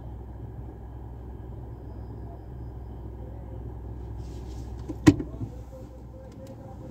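Car engine idling, a steady low hum heard from inside the cabin. A single sharp knock about five seconds in, with a couple of faint clicks after it.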